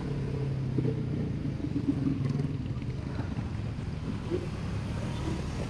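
Street traffic and road rumble heard from a moving electric kick scooter: a steady rumble of motorbike engines and tyres, with one engine hum louder during the first couple of seconds.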